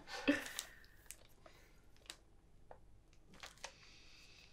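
A small wrapped gift being handled: a short paper rustle just after the start, then a few scattered faint clicks and rustles.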